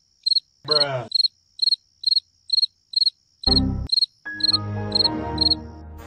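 Cricket chirping, about two short high chirps a second, stopping shortly before the end; the classic "crickets" silence gag dropped in place of the music. Brief lower pitched sounds cut in about a second in and again after about three and a half seconds.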